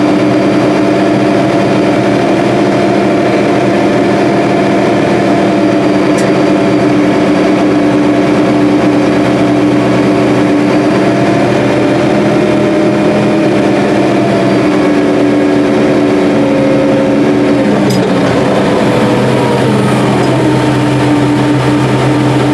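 Combine harvester running steadily during soybean harvest, a constant engine and machinery drone. Near the end a few of its tones slide down in pitch.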